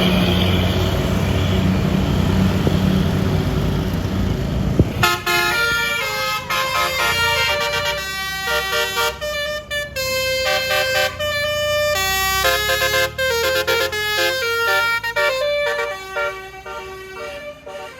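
A bus engine running loud close by. From about five seconds in, a basuri musical air horn plays a quick tune of changing notes, fading near the end.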